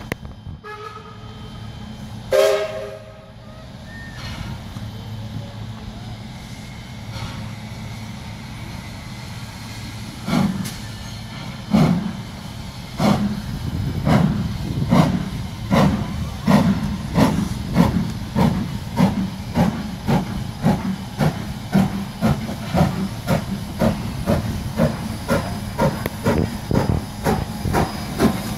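Double-headed steam locomotives AC16 221A and PB15 448 working toward the listener. A short steam whistle blast about two seconds in, over a steady hiss of steam. From about ten seconds in, exhaust chuffs grow louder and quicker, to about two a second.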